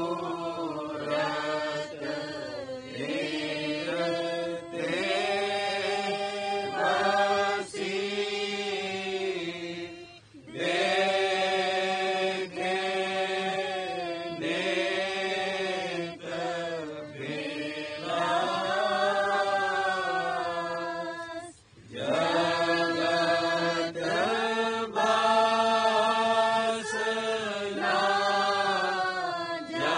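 Devotional hymn chanted in long, held melodic phrases, with short pauses for breath about ten and twenty-two seconds in.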